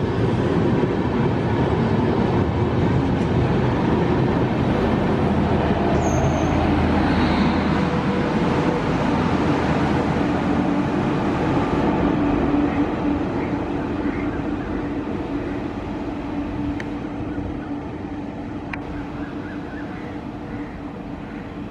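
Amrit Bharat Express push-pull train with its WAP-5 electric locomotive running past on the rails: a steady, loud rumble of wheels and coaches that fades gradually over the last nine seconds or so.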